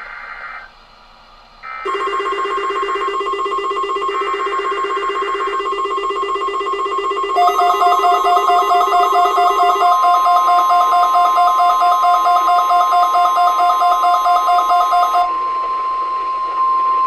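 Emergency alert data bursts: three short screechy bursts of the SAME digital header, followed by the steady NOAA Weather Radio warning alarm tone. Pulsing, warbling alarm beeps are layered over the steady tone and stop about 15 seconds in, leaving the single tone.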